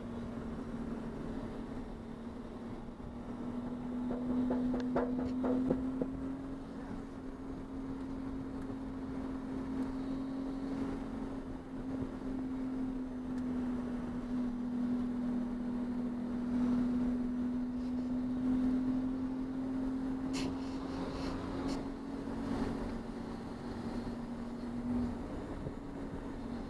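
Race car engine running at steady revs: one even drone over road and wind rumble, with a few short knocks and rattles about five seconds in and again around twenty seconds in.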